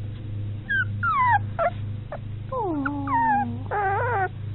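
Very young puppy whimpering: a run of short high squeals that fall in pitch, then a longer falling cry and a rougher, shakier one near the end, over a steady low hum.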